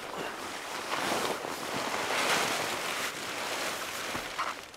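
Continuous rustling of nylon fabric, a stuff sack and a down jacket being handled and shifted, swelling and easing and loudest near the middle.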